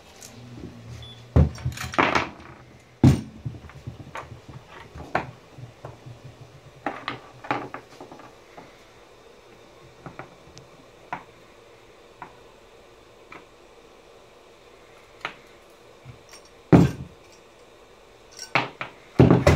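Small metal parts and plastic battery case pieces being handled and set down on a wooden workbench: scattered light clinks and clicks, with a few louder knocks about a second and a half and three seconds in, and again near the end.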